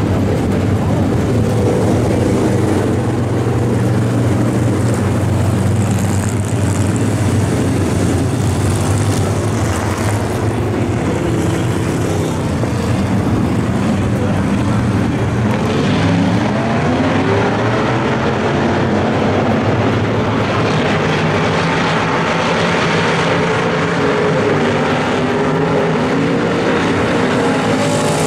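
A pack of Super Street dirt-track race cars with V8 crate engines running around the oval in a steady, loud engine drone. From about halfway through, the engine pitch rises and falls.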